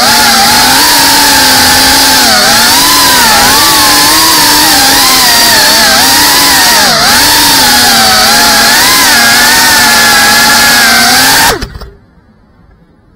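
GEPRC Cinelog 35 cinewhoop FPV drone's brushless motors and ducted 3.5-inch propellers whining loud, the pitch wavering up and down with the throttle, with air rushing over the onboard camera. The motors cut off suddenly near the end as the drone sits landed.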